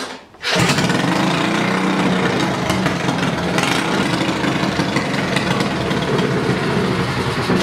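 Predator 212 single-cylinder four-stroke engine, running on ethanol through a Mikuni carburetor, fires up about half a second in and then runs steadily at idle. Its idle mixture is turned fully rich and it still wants more fuel: the number 20 jet is too small for this engine.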